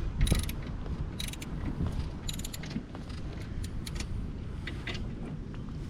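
Ratchet wrench clicking in three short bursts, with scattered single clicks between, as the quad's chain-adjuster bolts are tightened down.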